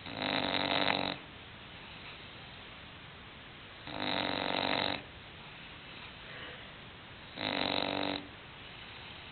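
English bulldog snoring in its sleep: three snores, each about a second long, spaced about three and a half seconds apart.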